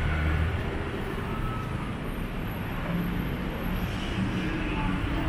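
Street traffic: a motor vehicle's engine running close by, a steady low rumble over the general noise of a busy street.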